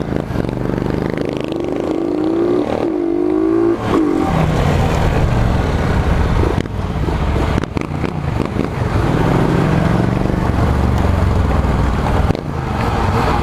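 Honda CG 125 motorcycle's single-cylinder four-stroke engine running under way, its pitch climbing and dropping back a few times in the first four seconds and again about nine seconds in.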